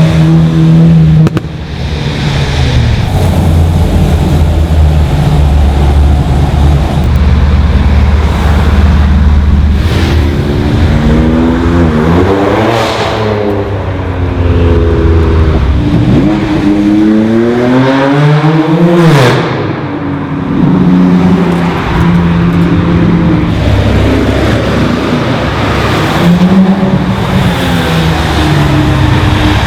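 Modified cars accelerating past one after another, their engine notes climbing as they speed up and dropping as each goes by, with two loud close passes about halfway through.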